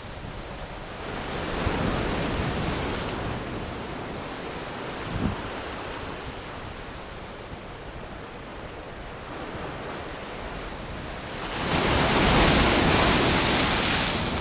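Sea waves washing onto the shore, with wind on the microphone. The surf swells about a second in and again, louder, near the end, and there is a single brief knock about five seconds in.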